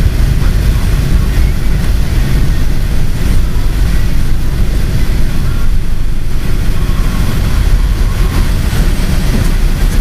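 Vehicle driving on a snow-covered road, heard inside the cabin: a steady low rumble of engine and tyres.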